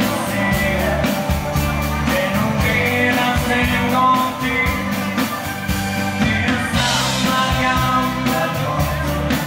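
Dansband playing live: a singer over the band, with a steady drum beat.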